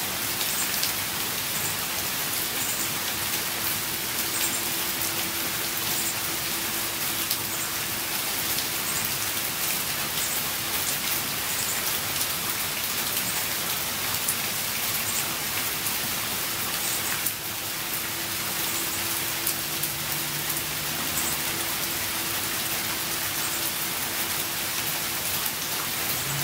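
Steady rain, an even hiss of falling drops, with a faint steady hum underneath.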